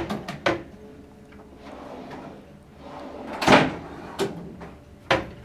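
Wooden kitchen base-cabinet door and pull-out shelf being worked by hand: sharp knocks at the start, a longer sliding rush about three and a half seconds in, and another knock near the end.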